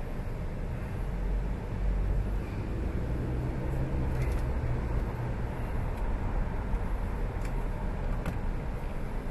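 Car driving, heard from inside the cabin: a steady low engine and road rumble that grows louder for a few seconds in the middle, with a few faint clicks.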